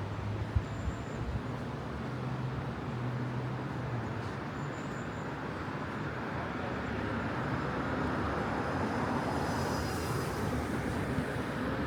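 Road traffic noise: a steady wash of passing vehicles that swells gradually, loudest about nine to eleven seconds in as a vehicle draws near.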